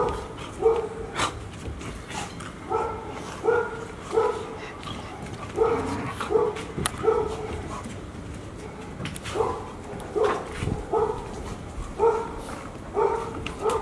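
Young golden retrievers barking in play: short, sharp barks that come in quick irregular runs, with a pause of about two seconds in the middle. Paws scuffle on the hard floor between the barks.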